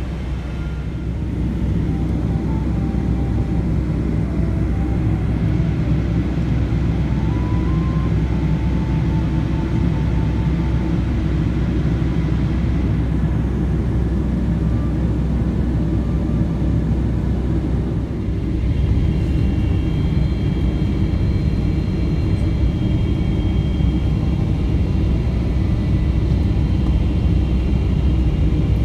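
Steady in-flight cabin noise of a Boeing 777-300ER descending on approach, a deep rumble of engines and airflow heard from a window seat. Faint high steady tones join in about two-thirds of the way through.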